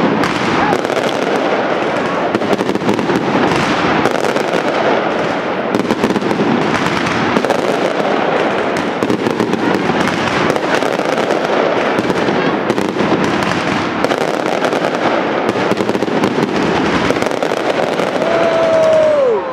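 Professional aerial fireworks barrage: a dense, unbroken rattle of bangs and crackling bursts. Near the end a single whistle falls in pitch.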